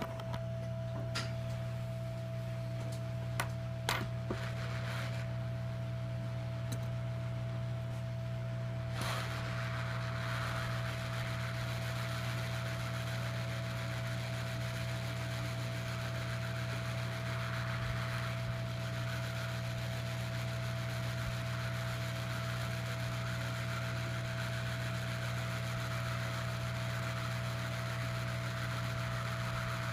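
A steady low machine hum with a few small clicks in the first few seconds, then a steady hiss joins about nine seconds in and carries on.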